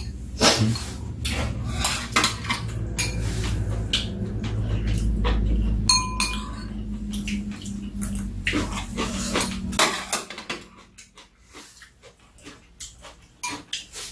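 Metal spoons and chopsticks clicking and clinking against ceramic bowls during a meal, many small strikes throughout. A low steady rumble runs underneath and stops about ten seconds in.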